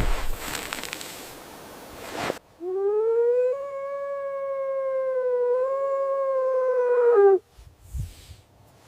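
A rushing noise, then a wolf howling: one long call of about five seconds that rises at the start, holds steady with a slight dip midway, and falls away at the end.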